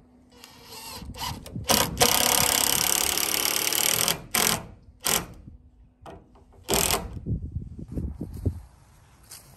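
Cordless drill driving a screw into pine board: the motor winds up, runs hard and steady for about two seconds, then gives three short bursts as the screw is set.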